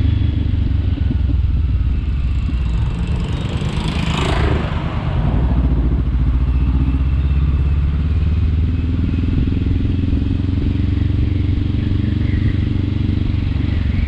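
Honda CBR500R's parallel-twin engine running while the motorcycle rides at street speed, with a brief rush of noise about four seconds in.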